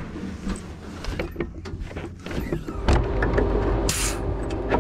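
Clicks and knocks from a streamliner's cockpit as the stopped car's canopy is unlatched and lifted open, with a loud knock about three seconds in and a short hiss about a second later.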